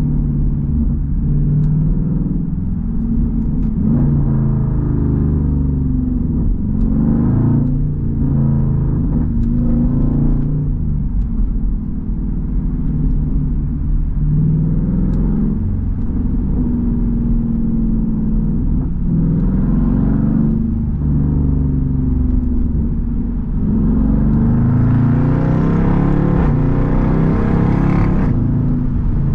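Straight-piped V8 exhaust of an SRT Jeep Grand Cherokee heard from inside the cabin while driving, the engine note rising and dropping several times as it accelerates through the gears. A harder, louder pull comes near the end.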